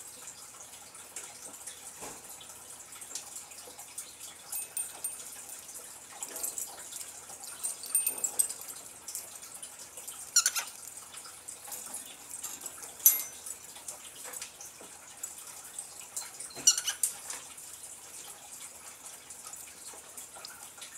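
Cockatiel moving about its cage: scattered soft clicks and taps, with a few sharper ones about ten, thirteen and seventeen seconds in, and some faint high chirps early on.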